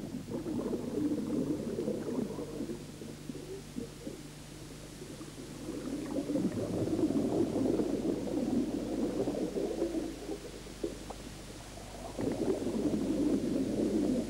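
Scuba diver's exhaled air bubbling out underwater: a low rumbling burble that swells about six seconds in, fades, then swells again near the end, over a steady low hum.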